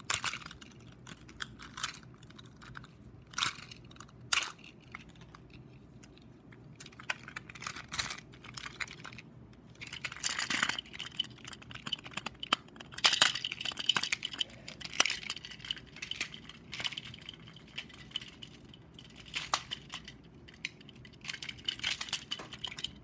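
Handling of toy packaging as the ties holding a Trackmaster toy train are pulled off: scattered clicks and crinkling rustles, with denser crinkling about ten seconds in and again from about thirteen to sixteen seconds.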